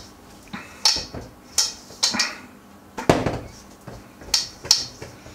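Hands kneading and pressing soft biscuit dough in a stainless steel mixing bowl, the bowl giving about six irregular knocks and scrapes as it is worked.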